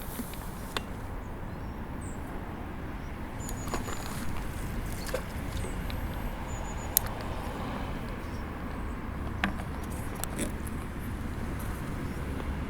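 Outdoor ambience: a steady low rumble with a few sharp clicks and a couple of short high chirps.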